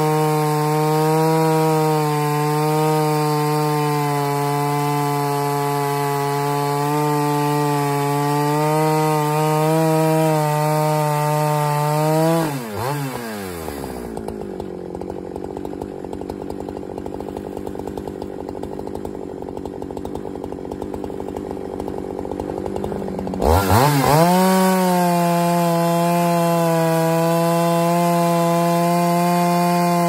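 Husqvarna 395XP two-stroke chainsaw ripping a log in a Granberg Alaskan mill, running steadily at full throttle under load. About twelve seconds in it drops to idle, idles for roughly eleven seconds, then revs back up and runs steadily at full throttle again.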